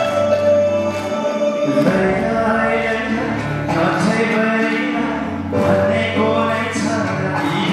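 A man singing into a microphone, holding long notes over instrumental accompaniment with a steady bass line.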